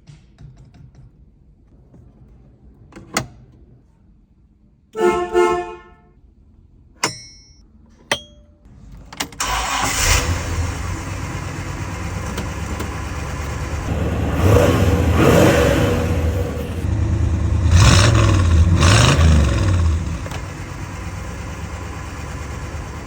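A few clicks and a short car-horn honk, then the 1965 Pontiac GTO's 389 V8 starts about nine seconds in. It is revved up twice and settles to a steady idle near the end.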